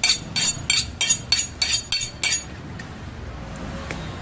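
A butcher's knife being honed against a cleaver blade: about eight quick metallic clinks, roughly three a second, that stop about two and a half seconds in.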